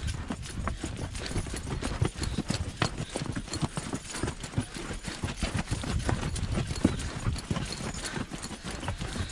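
A horse's hooves clopping on a dry, rocky dirt trail as it walks uphill, an uneven run of knocks with no let-up.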